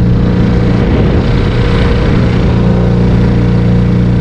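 Small Yamaha 3 hp outboard motor running at a steady cruising speed, pushing the inflatable boat along, with a steady rushing hiss of water and wind over it.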